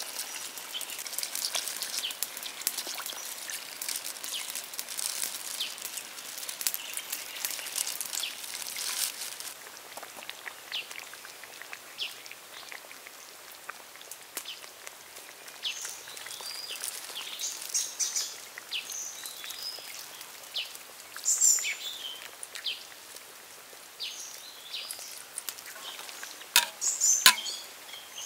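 Fish curry simmering in a pan, the oily sauce bubbling and popping: a dense crackle for the first ten seconds or so, then sparser pops, with a few sharp clicks near the end.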